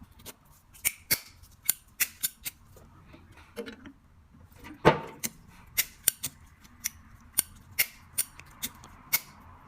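Repeated sharp metallic clicks, about two a second and unevenly spaced, from a repaired metal flip-top lighter being handled and worked, with one louder click about five seconds in.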